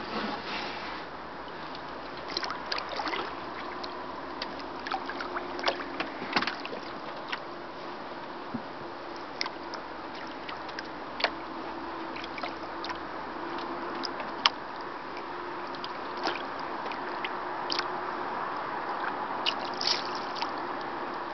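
Kayak being paddled on calm water: paddle strokes splash and drip, and water laps and trickles along the hull, with many small sharp ticks and splashes over a steady wash.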